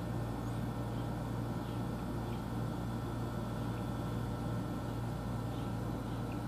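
A steady low mechanical hum with an even background hiss, unchanging throughout.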